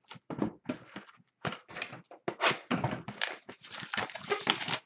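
Hands handling and shifting cardboard trading card boxes: a quick run of knocks, slides and rustles, getting busier from about a second and a half in.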